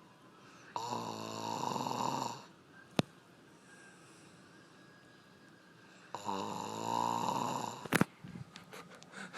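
A person snoring: two long snores, each about a second and a half, roughly five seconds apart. There is a sharp click between them and another right after the second.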